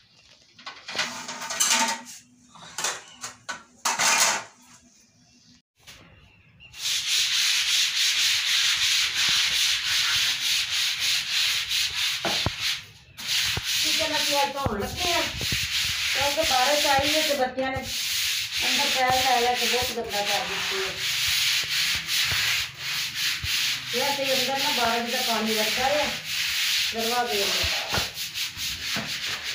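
Steel pots and dishes clinking as they are handled at a dish rack, then, from about seven seconds in, a short hand brush scrubbing a wet concrete floor in steady, rapid scratchy strokes.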